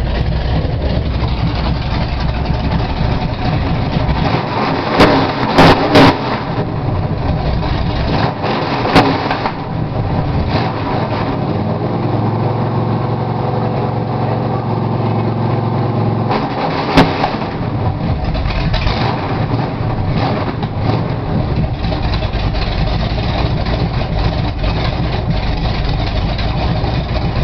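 Engine with points ignition running loud and steady, its speed shifting now and then. Several sharp bangs cut through it: three close together about five to six seconds in, one about nine seconds in and one about seventeen seconds in.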